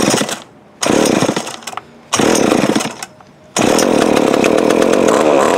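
Remington Mighty Mite Deluxe MMD3 chainsaw's 34cc two-stroke engine being pull-started: it sputters briefly three times, then catches about three and a half seconds in and keeps running, its speed rising and falling near the end.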